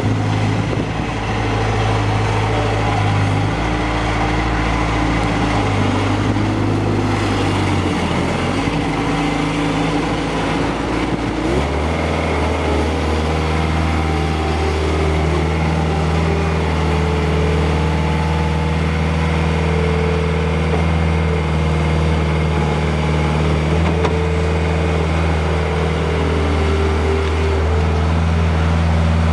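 Bobcat S175 skid steer's four-cylinder Kubota diesel engine running steadily. About 11 to 12 seconds in, its note drops to a lower speed and holds there.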